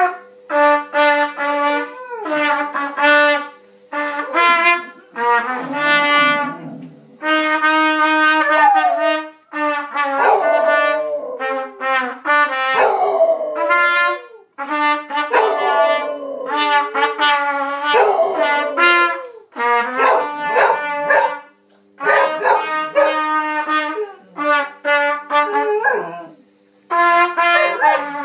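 A boy playing a trumpet in a run of short held notes while a basset hound howls along with it, the howls sliding and wavering in pitch against the steady trumpet tones.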